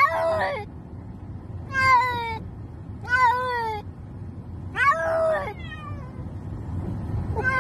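Domestic cat meowing repeatedly, five short meows about a second and a half apart, each bending in pitch. They sound inside a car, over a steady low rumble.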